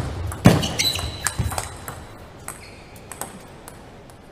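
Table tennis ball clicking: a sharp hit or bounce about half a second in, a quick run of lighter bounces over the next second, then a few scattered faint clicks.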